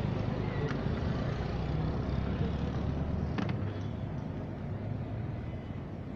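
Street background noise with a steady low engine hum, which eases slightly about three and a half seconds in, where a single sharp click is heard.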